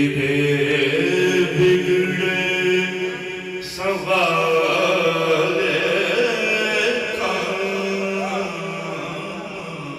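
Devotional chanting in long drawn-out held notes that starts abruptly; it breaks off briefly and a new phrase begins about four seconds in.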